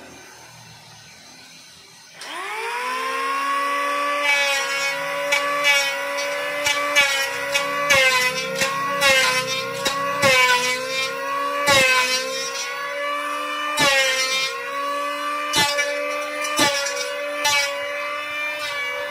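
Electric hand planer starting about two seconds in, its motor whine rising to speed and then running steadily. As it shaves the sonokeling (Indian rosewood) wood, the pitch dips briefly again and again, with short scraping noises as the blade bites.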